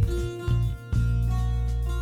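Background music: a loud bass line changing note every half second or so under higher sustained instrument notes.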